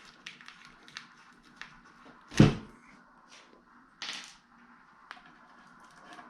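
Handling noise from a PC case's smoked polycarbonate side panel being taken off: scattered light clicks and taps, a sharp knock about two and a half seconds in and a duller bump about four seconds in.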